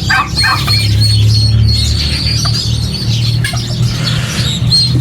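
Turkeys calling: a brief arching call in the first half-second, then a run of short, high, evenly spaced peeps repeating about three times a second over a steady low hum.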